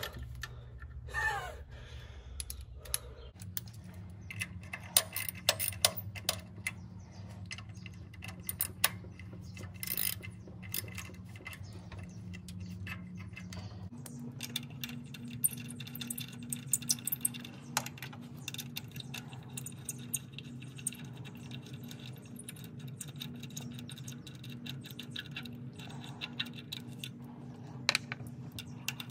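Ratchet with a 10 mm socket working bolts in a car's engine bay: scattered sharp clicks and runs of quick clicks, with small metal clinks of tool against engine parts, over a faint steady hum.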